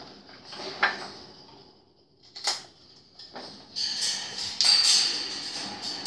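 Wire birdcage rattling and clinking as a Moluccan cockatoo swings upside down from the bars: two sharp knocks about one and two and a half seconds in, then a longer run of louder rattling from about four seconds.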